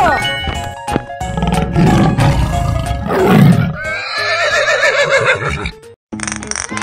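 Cartoon animal sound effects over children's background music: a big-cat roar in the middle, then a wavering horse-like whinny. The sound cuts out briefly near the end before a new music track starts.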